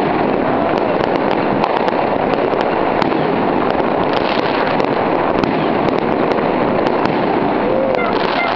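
Many fireworks and firecrackers going off at once: a dense, unbroken crackle with sharp bangs scattered all through it.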